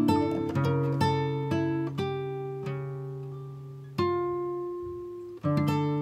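Background music on acoustic guitar: plucked notes and chords that ring and fade, a few close together at the start, then a single chord about four seconds in and another near the end.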